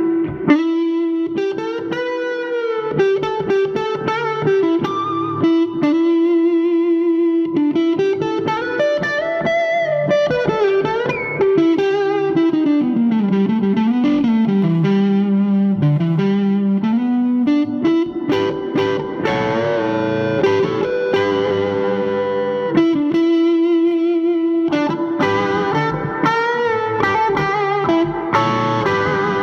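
Electric guitar played through the Thick Electronics Thickener overdrive pedal, gain set fairly low, into an Orange Super Crush 100 amp with its reverb on. It plays a lead line of held notes with wide vibrato and sliding string bends.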